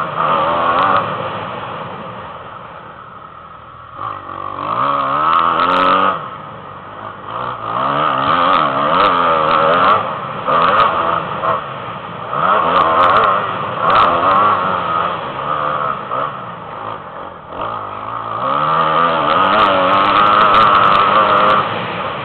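Motocross bike engine revving hard and easing off again and again as it is ridden, the pitch climbing in long rising sweeps and dropping between them, with a few short knocks along the way.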